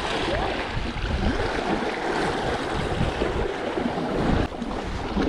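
Sea waves washing against shore rocks, with wind on the microphone.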